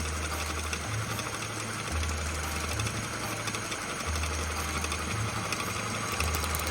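MINI Cooper R59 engine running, with a fast, steady mechanical chatter from the engine bay. Background music with a bass line plays along.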